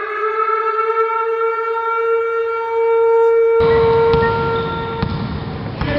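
A long, held horn-like note with a rich set of overtones, sliding up slightly at first and then steady, used as an intro sound effect; it fades out near the end. A bit over halfway in, the noise of the sports hall cuts in underneath, with a few sharp knocks.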